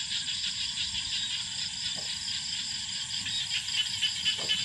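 Night chorus of insects and frogs: a steady high trill with fast pulsing calls layered over it.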